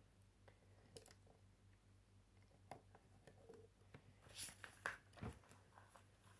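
Near silence: room tone with a few faint clicks and rustles from hands handling plastic Lego bricks on a wooden table, and a soft knock about five seconds in.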